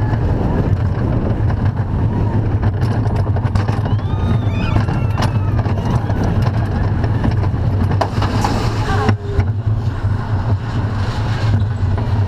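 Roller coaster train running on its steel track: a loud, steady low rumble of the wheels, with a brighter hiss about eight seconds in.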